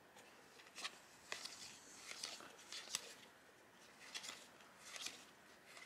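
Faint swishes and light clicks of trading cards sliding off one another as a hand leafs through a stack of Digimon cards one at a time, about six over a few seconds.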